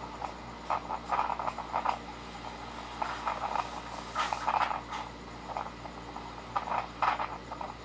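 Typhoon winds gusting in irregular surges, played back through a phone's small speaker, with a steady low hum underneath.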